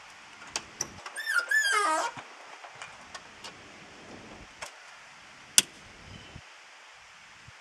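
Pickup truck driver's door creaking open on its hinges: a wavering squeal that slides down in pitch for about a second, then scattered clicks and one sharp click a little after halfway through.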